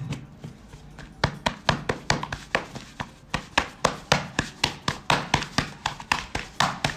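Knife chopping on a wooden cutting board in a fast, even rhythm of about four to five strokes a second, starting about a second in.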